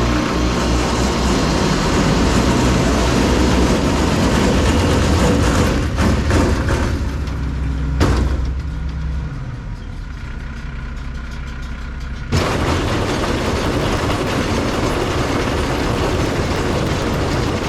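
Farm tractor engine running loudly. About eight seconds in there is a sharp knock. The sound then goes quieter and muffled for about four seconds before coming back loud all at once.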